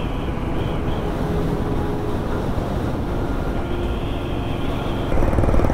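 Motorcycle running at steady cruising speed, its engine under a constant rush of wind. About five seconds in it turns louder, with the engine's quick, even beat more plain.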